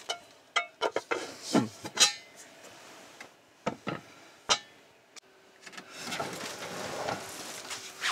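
Cookware and utensils being handled: a quick string of sharp clinks and knocks, some ringing briefly, followed about six seconds in by a steady rushing hiss.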